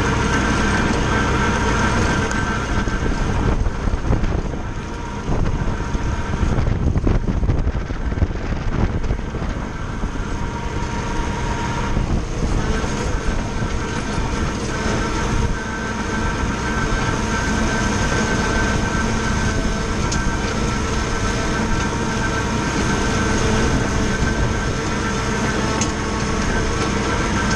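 Valtra A93 tractor's four-cylinder diesel running steadily under load, driving an Agrimaster KP 2600 flail mower that is cutting grass. The mower's rotor and the engine blend into one continuous drone, which turns rougher and more uneven about 4 to 10 seconds in.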